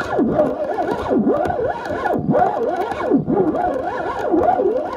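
Carp-fishing reel buzzing as its spool spins while a big carp pulls line off. The pitch keeps sliding up and down as the fish surges and slows.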